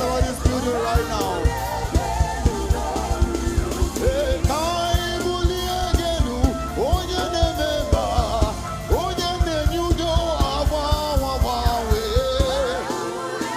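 Live gospel music: a singer's voice over a band with a steady drum beat.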